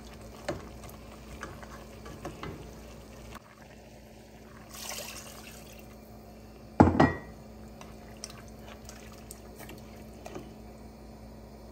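A spoon stirring pieces of goat meat in a pot with light knocks, then water poured from a bowl into the pot about five seconds in, the meat not yet done. One loud knock follows just before seven seconds.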